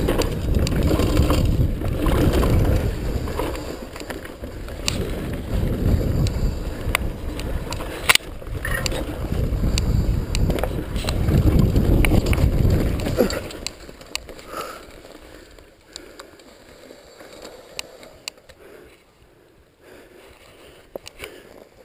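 Downhill mountain bike riding fast over a dirt forest trail: rushing wind noise on the bike-mounted microphone with the bike rattling and knocking over the rough ground, and one sharp knock about 8 seconds in. About 13 seconds in the rush drops away as the bike slows, leaving only faint clicks.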